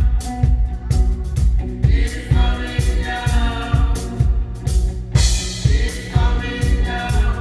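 Live gospel praise music: a drum kit with a steady kick-drum beat, band instruments and a group of voices singing.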